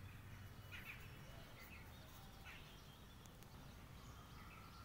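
Near silence: faint outdoor ambience with a low steady rumble and a few short, faint bird chirps.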